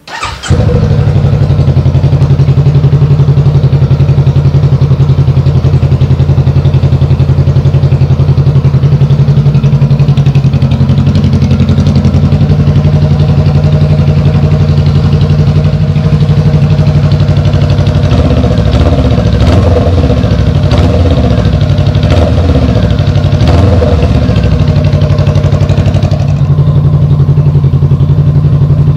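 Honda Rebel 500's 471 cc parallel-twin engine starting on the electric starter and catching at once, then idling loud and steady through a freshly fitted Shorty GP slip-on exhaust. The note rises and falls a few times past the middle.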